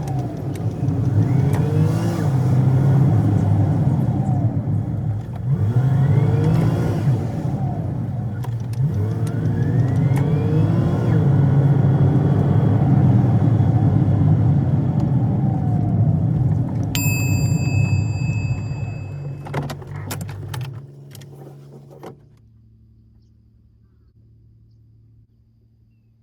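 A motor vehicle's engine running, rising in pitch several times as it accelerates. It fades away about twenty seconds in. A short electronic beep sounds shortly before it fades.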